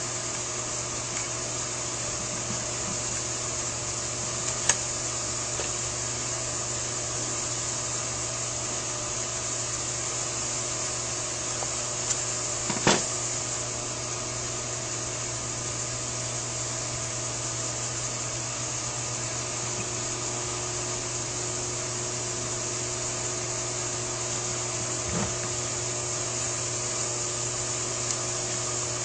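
Steady mechanical hum with a few light clicks of small carburetor linkage parts being handled, the sharpest about five seconds in and around thirteen seconds.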